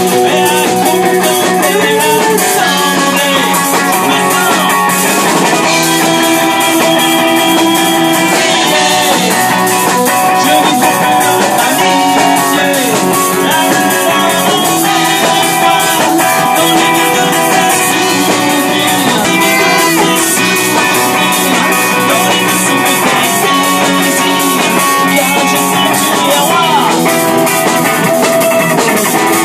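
Live rock band playing a song: electric guitar, bass guitar and drum kit, with a man singing.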